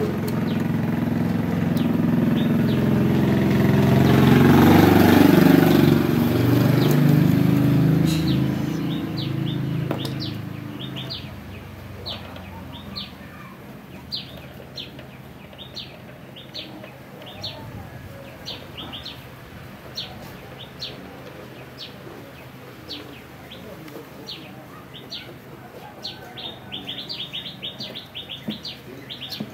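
A passing vehicle's engine noise swells to a peak about five seconds in and fades away by about ten seconds. After that, small birds chirp in quick, repeated short notes.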